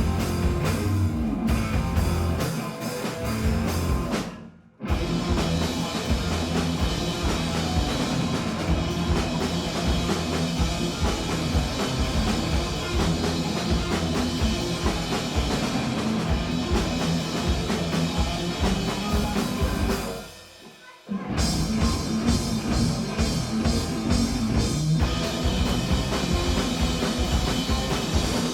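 Live punk rock band playing a song without vocals: drum kit and guitars. The band stops dead twice, briefly about four and a half seconds in and for about a second near 21 seconds in, then crashes back in.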